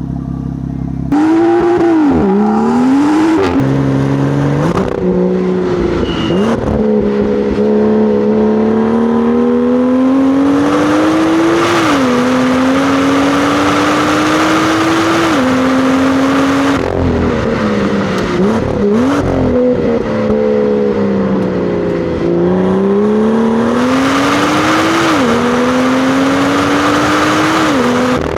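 BMW F87 M2 on its stock exhaust, heard from just above the muffler. The engine pulls hard through the gears, its pitch climbing and then dropping sharply at each upshift. Mid-way it falls in pitch through quick rev-blipped downshifts before accelerating through the gears again.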